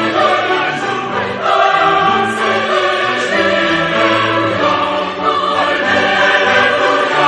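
Choir singing classical sacred music with accompaniment, in long held chords.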